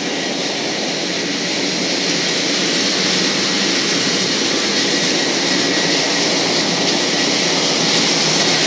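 Maize hammer mill running: a steady, loud machine noise that slowly grows louder.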